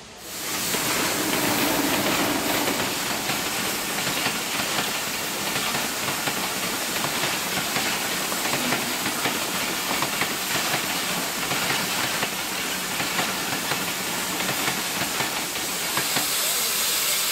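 A standing HGS class broad-gauge steam locomotive blowing off steam with a loud, steady hiss that sets in sharply about half a second in. The clatter of a passenger train's wheels running past on the next track sounds under it.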